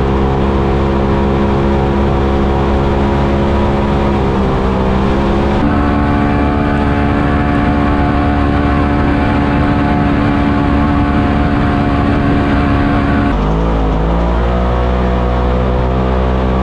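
Turbocharged Polaris RZR side-by-side engine running at steady revs on the trail. Its pitch dips and climbs back a few times as the throttle eases and picks up, and the sound changes abruptly about five and a half seconds in and again near the end.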